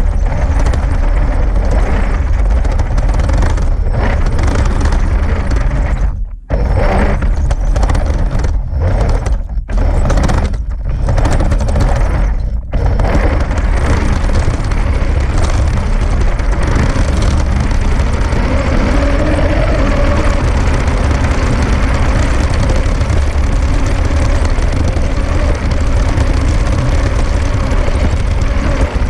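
Steady mechanical rumble of a 3D-printed RC tank's drive motors and tracks as it drives over grass, picked up by its onboard camera. The sound cuts out briefly a few times between about six and thirteen seconds in.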